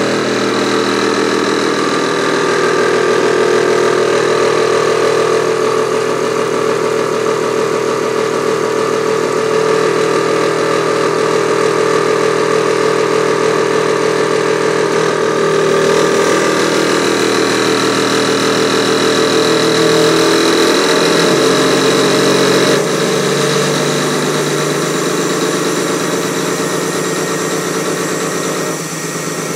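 Cummins diesel engine running steadily at idle; about two-thirds of the way through its pitch dips and settles lower.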